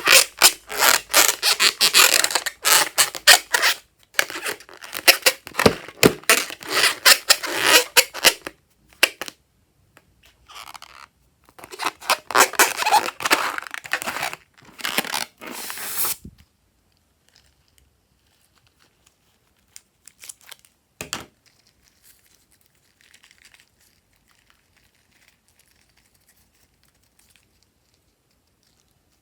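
Crackling, tearing handling sounds of slime and its ingredients being worked. They come in dense stretches with brief pauses for about sixteen seconds, then only a few faint clicks and one sharp click.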